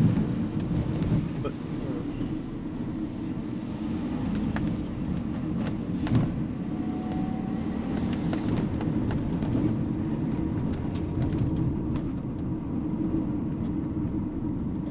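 Van engine and road noise droning steadily inside the cab while driving slowly, with a few scattered clicks and knocks.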